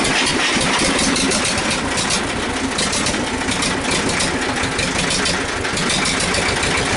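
Old Chinese-built diesel engine of a backhoe loader running steadily with rapid firing pulses, just caught on a cold start after sitting unused for a long time, helped by the grid intake heater and by letting go of the compression release.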